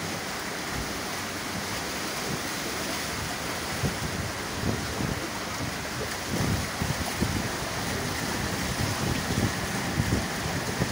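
Floodwater rushing and splashing around a train moving through water that covers the tracks, a steady watery rush. Wind buffets the microphone in low gusts, stronger from about halfway through.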